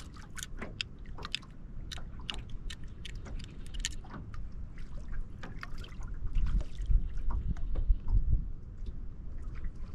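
Water lapping and slapping against a boat hull in short, irregular clicks and splashes, over a low rumble that swells about six seconds in and eases off near the end.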